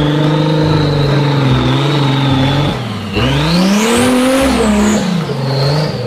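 Engine of a lifted, mud-covered Jeep Cherokee off-road 4x4 running under load as it churns through mud. It drops briefly about three seconds in, then revs up and falls back, with a rising whine.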